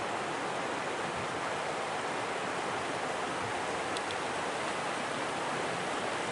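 Steady rushing of a shallow river running over rocks.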